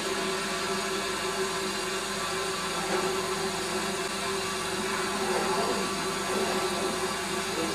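Steady running hum of a slow-moving train, heard from inside the carriage, with a constant low whine and no sudden events.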